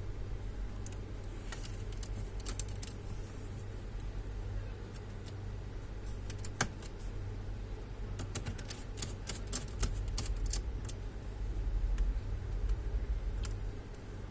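Scattered small clicks and taps of hands working on a computer's plastic and metal parts during disassembly, with a dense run of clicks in the second half over a steady low hum.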